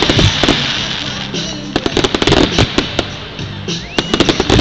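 Aerial fireworks bursting: rapid clusters of crackling bangs, with a short rising whistle just before the last cluster near the end.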